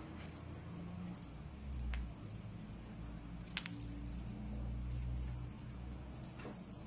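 A cat toy rattling and jingling in irregular little shakes, with a couple of sharp clicks, as a kitten bats at it.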